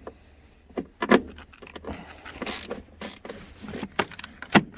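Irregular metallic clicks, clinks and knocks of a hand tool and loose fittings being worked off, with a short scraping stretch about halfway through.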